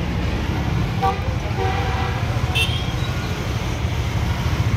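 Steady road traffic rumble, with a short vehicle horn toot about halfway through.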